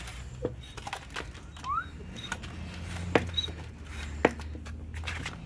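Hand-pumped vacuum oil extractor drawing engine oil up its suction tube, with scattered light clicks and knocks over a steady low hum. A short rising chirp comes about a second and a half in.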